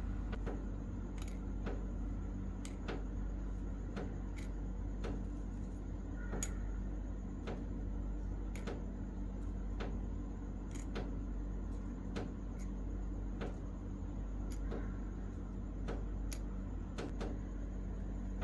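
Steady low hum with a faint high whine, and scattered light clicks at irregular intervals.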